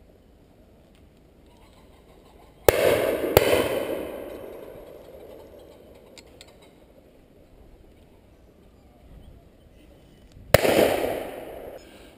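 Three shotgun shots at pheasant: two in quick succession, under a second apart, about two and a half seconds in, then a single shot near the end. Each one echoes away through the woodland over a couple of seconds.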